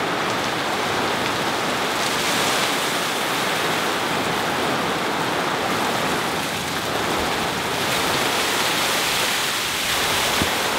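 Heavy rain falling steadily, with pooled rainwater spilling off the edge of a sagging tarp in a sheet as it is pushed up from below with a pole.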